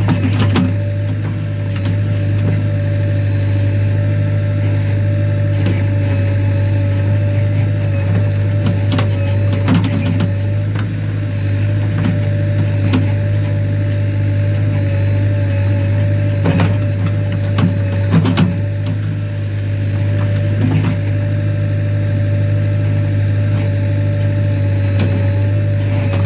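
JCB 3DX Eco Xpert backhoe loader's 49 hp diesel engine running steadily under load while the backhoe bucket digs soil, with a steady whine above the engine note. Occasional short knocks and clunks come from the bucket and arm as it works the earth.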